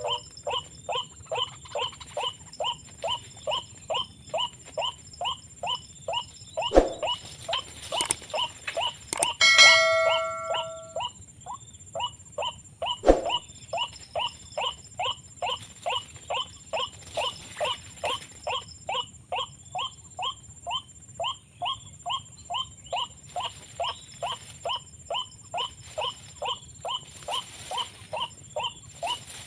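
White-breasted waterhen calls: a short call repeated steadily about twice a second. Two sharp knocks come through, and a loud ringing tone fades out about ten seconds in.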